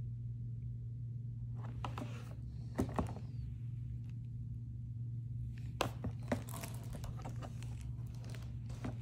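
Packaging and unboxed tripod gear handled by hand: scattered rustling, crinkling and a few light knocks, over a steady low hum.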